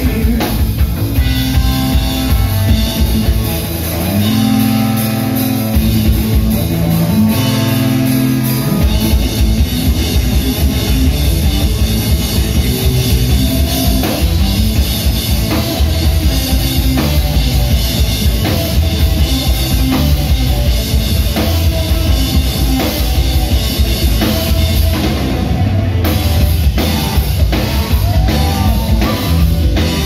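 Live rock band playing an instrumental passage on electric guitar, bass and drum kit. A few seconds in, the drums drop back under a run of held bass notes, then the full band with a steady drum beat comes back in.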